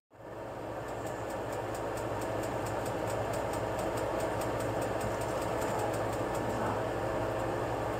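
A steady machine hum, with faint, even ticking over it.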